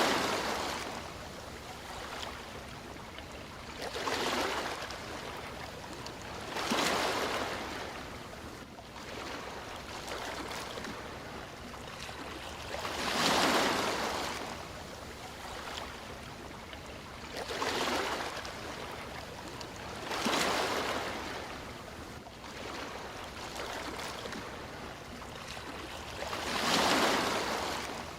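Sea waves washing in, seven swells that rise and fade away at uneven gaps of three to six seconds over a steady low wash.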